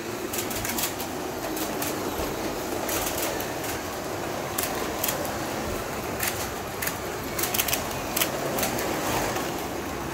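Several 1:24 scale slot cars running on a multi-lane track: a steady whir of motors and tyres with irregular sharp clicks and clatter as the cars pass over the track.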